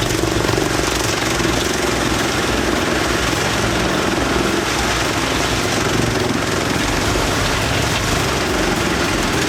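Wood chipper running steadily with a dense, unbroken mechanical noise.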